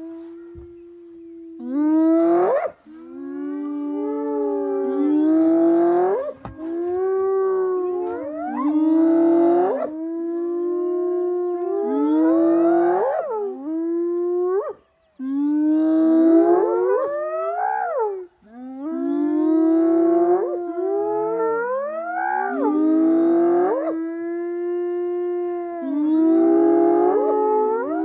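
Several animals howling together in an overlapping chorus: long held notes, broken again and again by sharp rising glides that break off at the top.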